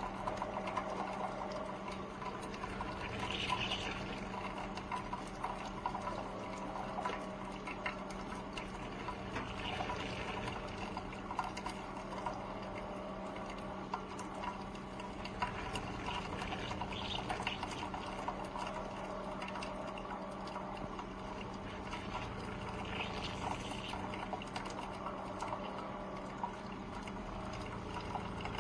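Hamilton Beach FlexBrew Trio coffee maker running, with water trickling and dripping over a steady low hum and many small ticks.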